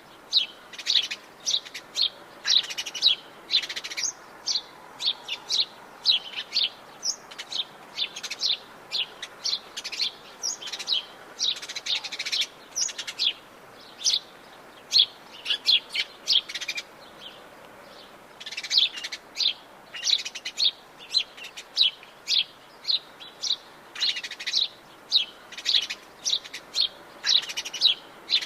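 Birds chirping and singing in the Atlantic Forest of Brazil, a steady stream of short, high chirps several times a second, with a brief pause about two-thirds of the way through, over a faint background hiss.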